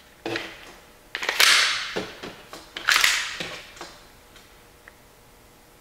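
KWA ATP airsoft pistol being handled: a string of light clicks and knocks, with two louder scraping sounds about a second and a half and three seconds in.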